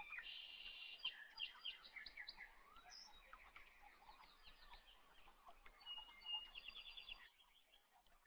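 Faint birdsong: several small birds chirping, with quick repeated trills.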